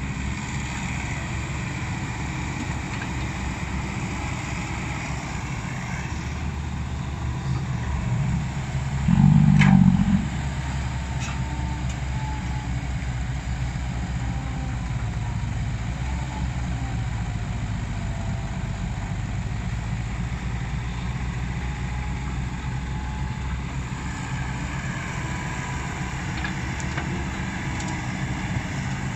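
Komatsu hydraulic excavator's diesel engine running steadily, with a faint whine that slides up and down in pitch. About nine seconds in, the engine loads up and gets louder for about a second, with a sharp click, and another click shortly after.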